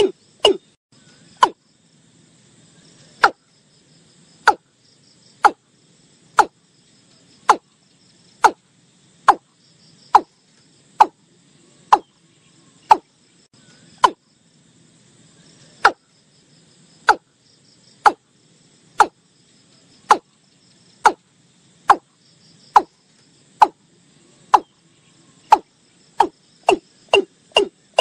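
Watercock calling, a recording of the kind played as a hunting lure. It is a long series of short notes, each dropping sharply in pitch, about one a second, quickening to about three a second near the end.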